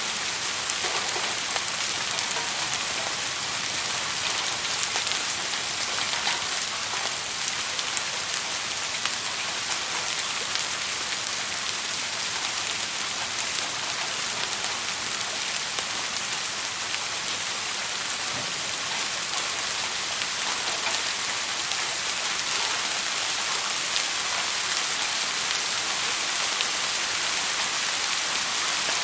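Steady rain falling, an even hiss made of many fine drop ticks, without a break.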